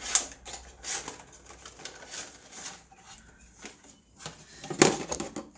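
Razor packaging being opened by hand: rustling and scattered clicks, with a sharp snap about five seconds in.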